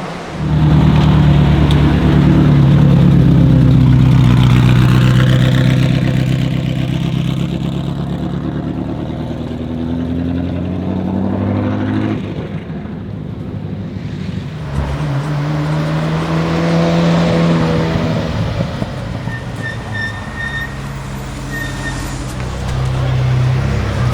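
Ferrari supercar engine running loud and low at low speed, starting abruptly about half a second in, easing off about twelve seconds in and building again a few seconds later.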